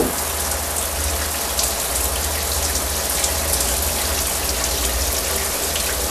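Shower running: a steady spray of water hissing down onto people and the stall floor, with a brief knock right at the start.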